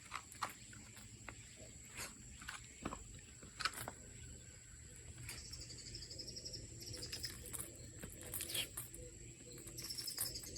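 Outdoor ambience with a steady high insect-like tone and, from about halfway, pulsed chirping like insect song. A few sharp clicks or taps come in the first few seconds.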